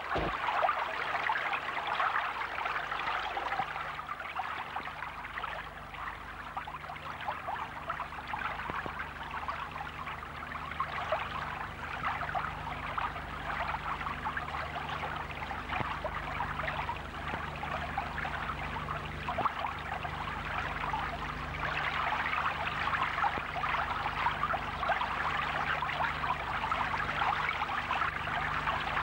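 Water pouring steadily from a railway water crane's spout and splashing onto a man standing beneath it and the ground below, a continuous rushing splash.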